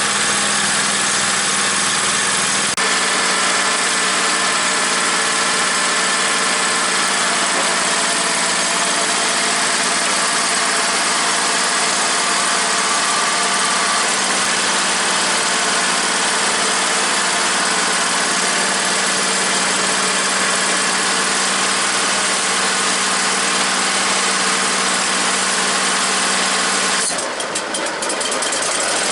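Kohler engine on a stump grinder running steadily at open throttle with a little choke still on, its carburetor freshly cleaned. About two seconds before the end it briefly falters and dips, then picks up again.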